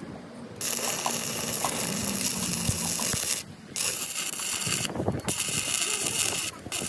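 Metalworking tool noise: a harsh hiss that runs in stretches of about three seconds, stopping briefly twice, with scattered clicks and knocks.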